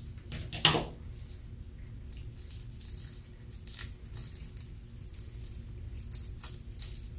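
Slime being squeezed and handled, making small wet pops and crackles, with one much louder squish just under a second in.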